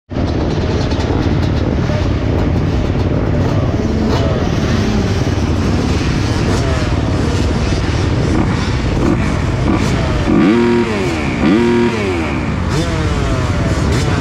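Several dirt bike engines idling and revving together at the starting gate, among them the 2020 Kawasaki KX250's single-cylinder four-stroke. Two loud rev blips close by, each rising and falling, come about two-thirds of the way through.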